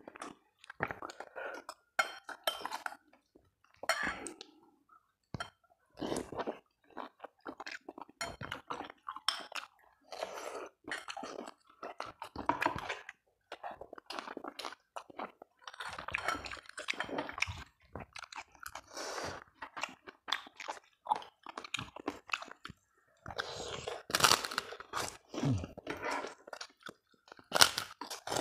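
Chewing and crunching: a run of short, crisp crunches in clusters, with brief pauses between them. The loudest come near the end, as white kerupuk crackers are bitten.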